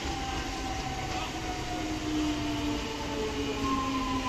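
An electric multiple-unit local train running past and away, a steady low rumble of wheels on the rails with a whine that glides slowly down in pitch.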